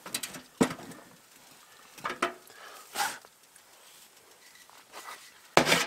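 Scattered light knocks and clatter of things being handled around a wood stove: a few separate taps, then a short, loud noisy burst near the end.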